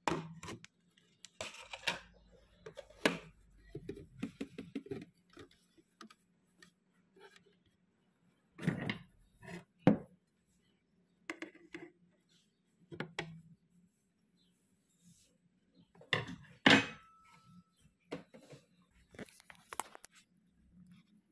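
Handling noises of a clear plastic spider transport box: scattered taps, knocks and rustles as it is gripped and moved, with a sharper knock a little after halfway.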